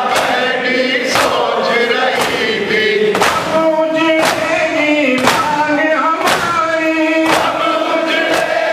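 A man's voice singing a noha, a Shia mourning lament, through a microphone, with a crowd chanting along. Sharp hand strikes land in unison about once a second: the congregation beating their chests in matam to the rhythm of the lament.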